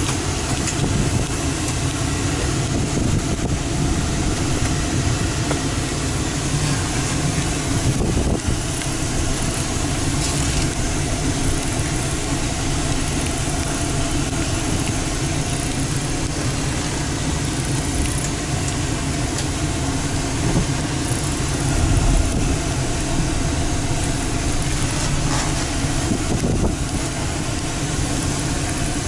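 2006 Ford F-150's 4.6-litre gasoline V8 running steadily, heard from inside the cab.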